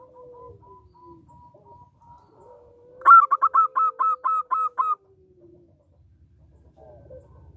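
Zebra dove (perkutut) singing. Soft, drawn-out coos are followed about three seconds in by a loud two-second run of about ten quick staccato notes.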